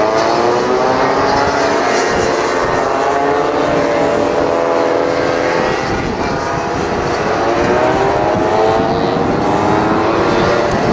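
Several racing scooter engines revving hard as the scooters pass through a bend, their pitch rising and falling as they brake and accelerate, the pitch climbing again in the second half.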